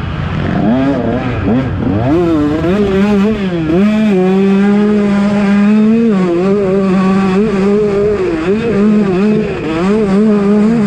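KTM 125 SX two-stroke single-cylinder engine revving under riding, its pitch climbing quickly in the first couple of seconds, then held high with small wavers and dips as the throttle is worked.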